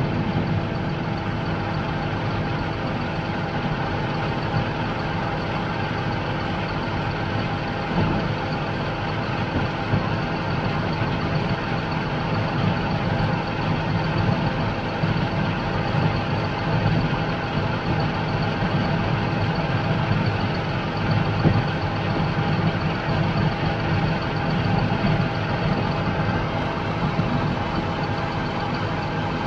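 Case IH 335 tractor running steadily a little over idle while pulling a grain cart, heard from inside the cab: an even engine drone with a steady whine running through it.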